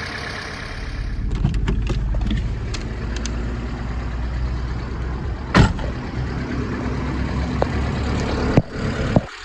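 1997 Hyundai Elantra 1.8 four-cylinder engine running, with the hydraulic lifter noise that Liqui Moly lifter additive has not cured: worn or noisy lifters. The engine gets louder and deeper about a second in, and a single sharp click stands out a little past halfway.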